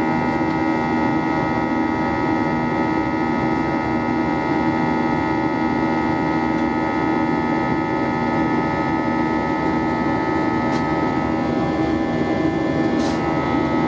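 Steady jet engine drone heard inside the cabin of an Airbus A320-232 from its IAE V2500 turbofan: an even rush with several steady tones on top.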